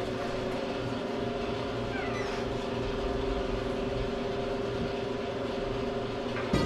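A steady mechanical hum with a constant mid-pitched tone, and a single short knock near the end.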